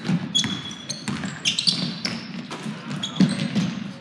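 A basketball bouncing on a hardwood gym floor during play, with repeated thuds, and sneakers squeaking on the boards several times, loudest about a second and a half in.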